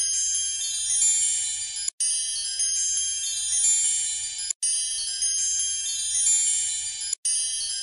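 Added soundtrack of high, twinkling chime music, a short loop that cuts out briefly and restarts about every two and a half seconds.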